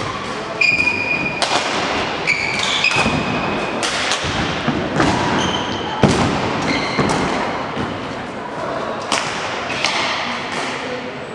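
Sports-hall play: a run of irregular thuds and knocks, the loudest about six seconds in, with short high squeaks scattered through the first half and voices underneath.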